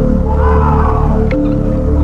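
Eerie droning background music with a steady low rumble, and a distorted, wavering cry rising and falling over it in the first second.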